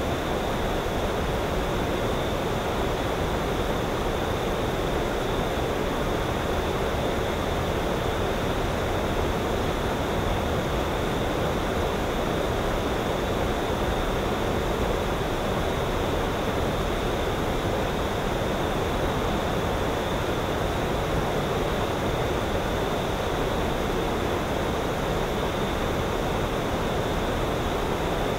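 Steady outdoor ambience: an even, unchanging hiss with a faint high steady tone above it and no distinct events.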